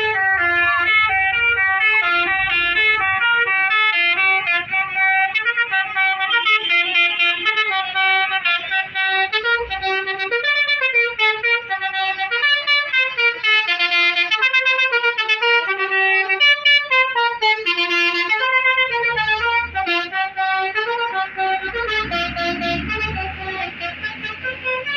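Bus telolet horn, a set of multi-tone air horns, playing a quick melody of short changing notes. A low rumble joins near the end.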